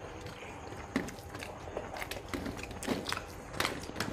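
Faint eating sounds: chewing and small scattered clicks of rice and fish curry being eaten, with a few slightly louder clicks about a second in and near the end.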